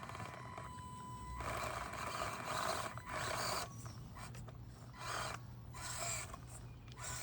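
Axial SCX24 Deadbolt micro RC crawler driven over the course in short stop-start bursts of throttle: its small brushed 050 motor and gears whir under load about five times, the longest burst about a second and a half.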